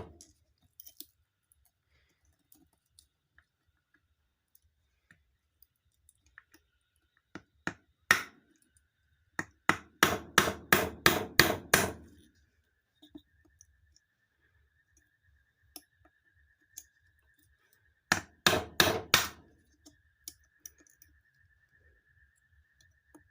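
Light metal-on-metal taps on a nut held against a ceiling fan's bearing cover, knocking the bearing loose to free the fan's top cover. Two single knocks, then a quick run of about eight strikes, and later a shorter run of four or five.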